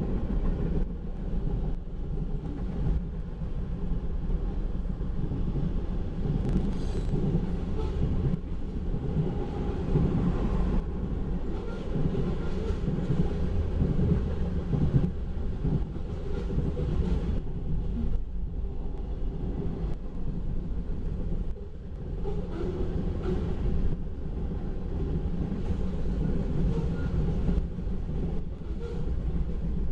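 Freight cars of a long manifest train (open hoppers, covered hoppers and boxcars) rolling past close by: a steady rumble and clatter of steel wheels on the rails.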